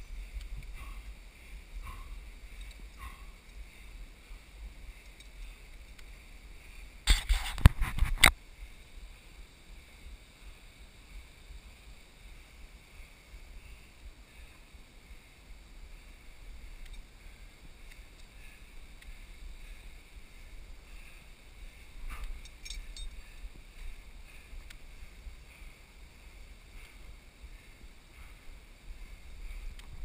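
Muffled scuffing, rubbing and knocking of a chest-mounted GoPro as a climber scrambles over rock, over a steady low rumble. About seven seconds in comes a loud burst of scraping and bumps lasting about a second, and a few small clicks come later.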